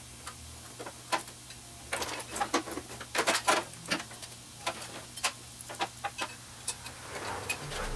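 Irregular metallic clicks, clinks and knocks of hand tools and parts as a riding mower's engine is worked loose for removal, some with a short ring. Under them runs a faint steady hum.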